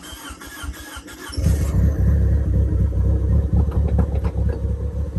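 Turbocharged Mitsubishi 4G63 four-cylinder in a first-generation DSM being cranked over by the starter, with a whirring whine and an even rhythm of compression strokes. It catches about a second and a half in and settles into a loud, steady idle.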